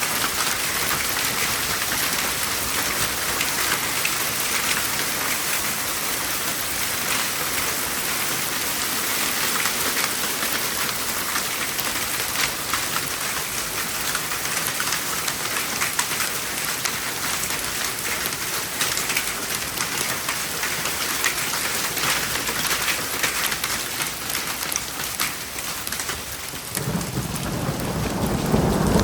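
Hail and heavy rain pelting down, a dense patter crowded with sharp ticks of hailstones striking. Near the end a deep rumble of thunder starts and swells.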